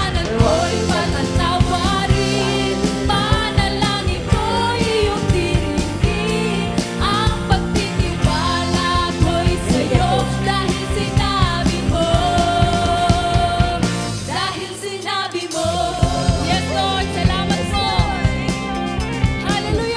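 Background music: a song with singing over a steady beat. The music thins out briefly about fifteen seconds in.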